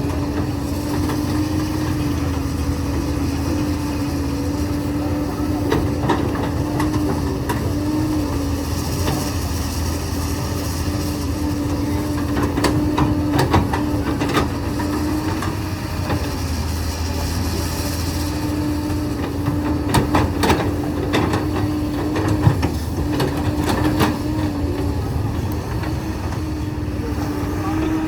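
Hydraulic excavator's diesel engine running steadily under load with a constant hum, while limestone rock and the steel bucket give scattered sharp knocks and clanks. A hiss runs through the middle stretch.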